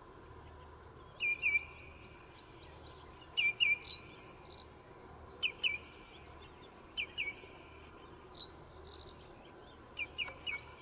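A bird calling: short, sharp, high notes in quick pairs, repeated every two seconds or so, with a quick triple near the end.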